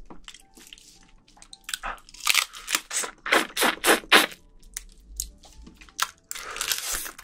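Close-miked wet eating sounds from soy-marinated raw crab: a run of short wet sucks, squishes and shell crunches as the meat is sucked from the crab pieces, with one longer wet stretch near the end.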